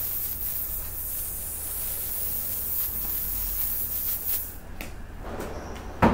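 Aerosol hairspray sprayed in one long steady hiss over a styled head of hair, stopping about four and a half seconds in. A single sharp knock right at the end.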